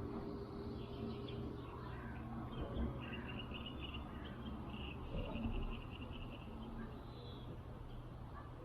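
Rapid, high-pitched chirping trills from a small calling creature, running for a few seconds in the middle, over a steady low background rumble. Two soft knocks stand out, one about three seconds in and one past five seconds.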